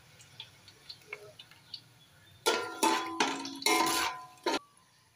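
A metal spoon scrapes around an aluminium cooking pot as it stirs whole spices frying in oil. There are about four loud strokes in the second half, each making the pot ring at the same few steady tones. They follow a faint, scattered crackle of the spices in the oil.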